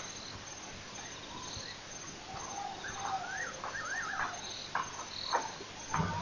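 Night insects, crickets, chirping in a steady high pulsing, with a bird giving a run of quick rising-and-falling calls for about a second and a half midway, and a couple of sharp clicks near the end.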